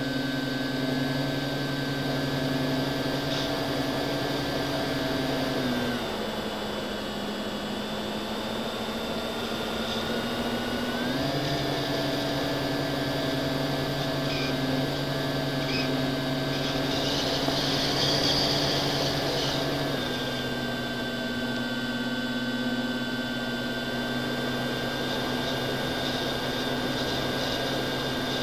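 Electric motor and propeller of an FPV model aircraft, heard from its onboard camera, running steadily with a whine over wind hiss. The pitch drops about six seconds in, climbs back about five seconds later and eases down again near two thirds of the way through as the throttle is changed.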